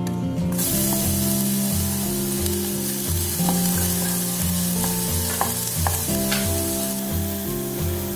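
Minced garlic dropped into hot oil in a nonstick pot, sizzling from about half a second in as it is stirred and sautéed with a wooden spatula, with a few light clicks of the spatula against the pan.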